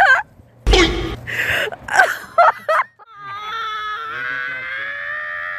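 A woman's long, high-pitched frightened whimper, held steady for over two seconds and rising slightly in pitch. It is preceded by a few short, noisy bursts in the first couple of seconds.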